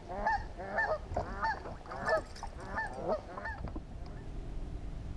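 A bird calling over and over in short curved calls, about three a second, that stop about three and a half seconds in, over a low steady rumble.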